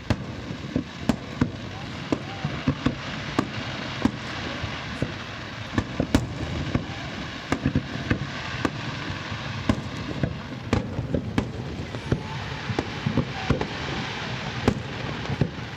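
Fireworks display: a rapid, irregular string of sharp bangs, several a second, over continuous crackling and hissing from the shells.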